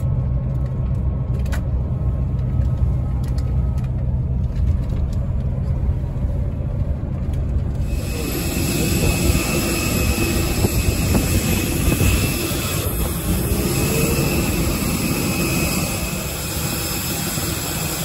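Steady low rumble of a vehicle driving along a highway, heard from inside. About eight seconds in it cuts abruptly to airport apron noise around a jet airliner: a dense steady hiss with a faint high whine.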